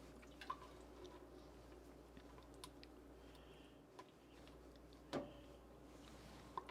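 Near silence: room tone with a few faint clicks and a soft knock about five seconds in.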